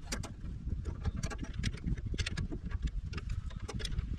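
Irregular clicks and clinks of hand tools being rummaged through in a truck toolbox, over a steady low rumble.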